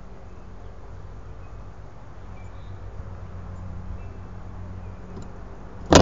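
A steady low buzzing hum with faint, short bird chirps over it, then a sharp loud knock at the very end as the feeder-mounted camera is jolted.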